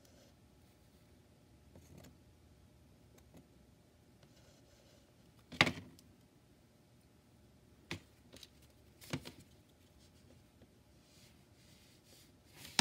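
Handling sounds on a tabletop: one sharp knock a little before halfway, then a few lighter clicks, as a UV glue-curing light pen and a small glass piece are set down and picked up.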